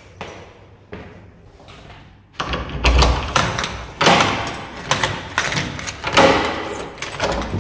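Footsteps in a stairwell, then from about two and a half seconds in a loud run of clatter, rattling and thumps as a flat's door is unlocked and opened.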